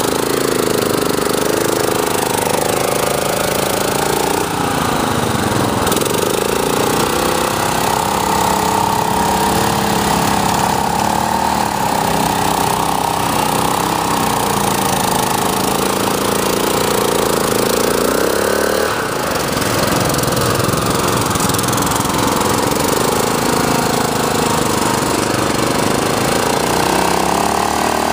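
Small engine of a converted riding lawn mower running hard as it ploughs through mud. The revs rise and fall, dipping briefly about four and nineteen seconds in.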